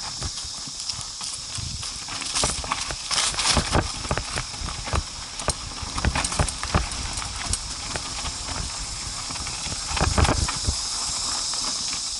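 Irregular knocks and rattles over a steady hiss, as of an off-road vehicle jolting along a rough dirt trail, with the heaviest jolts about 3 seconds in and again about 10 seconds in.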